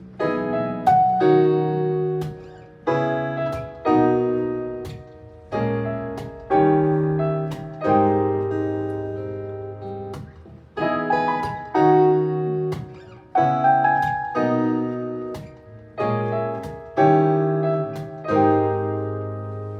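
Piano playing an instrumental passage without vocals: full chords struck one after another, each ringing and fading before the next.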